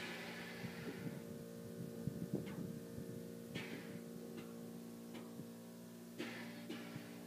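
Rear air suspension dumping: air hisses out through the solenoid valves in short bursts as the Slam bolt-in air bags deflate and the ute's rear drops onto its tyres. The first hiss is the loudest and fades over a second or so. Clicks and creaks come between the hisses, and a steady low hum runs underneath.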